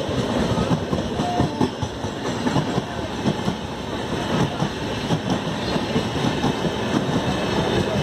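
Steady rumble of a train of LHB passenger coaches passing close by on the next track, with rapid, irregular clickety-clack of wheels over rail joints.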